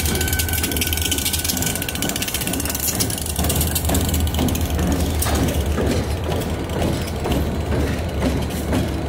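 New York, Susquehanna & Western diesel locomotives rolling slowly past at close range: a steady low engine drone with fast, dense clicking and rattling from the running gear that thins out about halfway through, with a few knocks.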